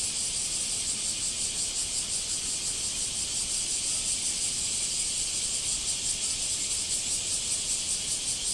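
Cicadas singing in chorus: a continuous high-pitched shrill with a fast, even pulsing.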